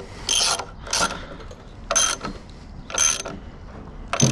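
Socket ratchet wrench clicking in five short bursts, about one a second, as the nut on an epoxy-anchored bolt is tightened down once the epoxy has set.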